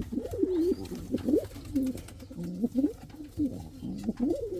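Domestic pigeon cooing in a loft: a steady run of low coos that rise and fall in pitch.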